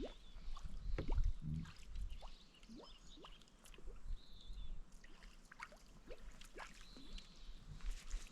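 Water dripping and plinking around a kayak on a river, a string of short rising plinks with a few low knocks against the hull.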